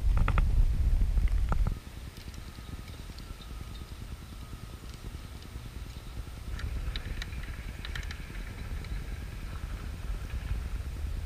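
Wind buffeting the microphone at the top of a sailboat's mast: a loud rumble for the first couple of seconds, then dropping to a much quieter wind hiss with scattered faint clicks and a few thin high tones.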